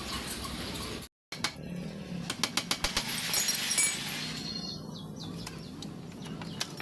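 Hand tools clicking and clinking on the moped engine's metal parts as the cylinder head is dismantled, with a quick run of about seven sharp clicks a little over two seconds in.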